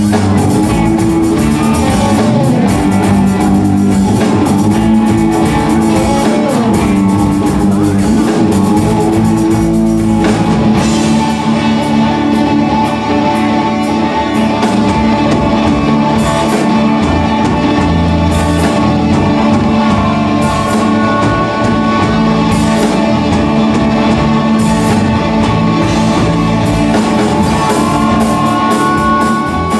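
Live rock band playing a song on electric guitars and a drum kit.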